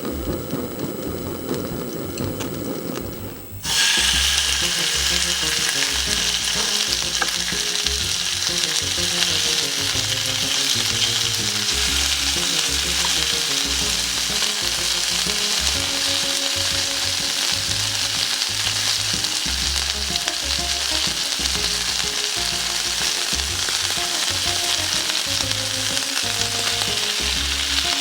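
Chop steak ingredients sizzling in a hot frying pan. The sizzle starts suddenly about four seconds in and then holds steady, with soft background music underneath.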